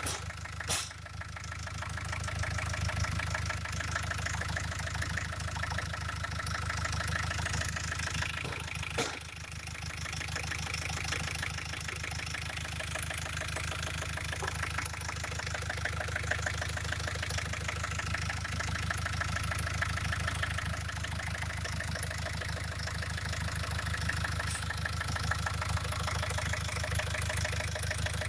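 Fiat Ducato 2.5 TD four-cylinder turbodiesel idling steadily, with two brief thumps about a second in and again about nine seconds in.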